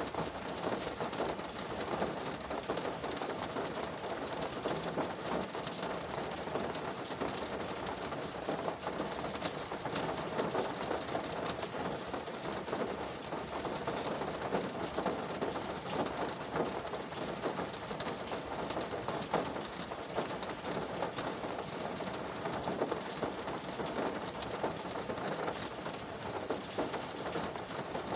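Steady rain falling on a car's body and glass, heard from inside the car: a dense, even patter of countless small drop ticks.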